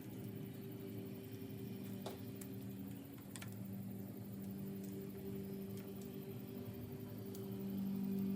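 A steady low electrical-sounding hum with a handful of sharp, light clicks scattered through it, a few seconds apart.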